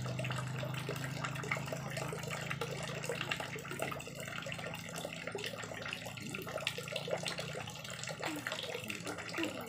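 Water running steadily, with a low hum that fades out about four seconds in and small clicks and taps throughout.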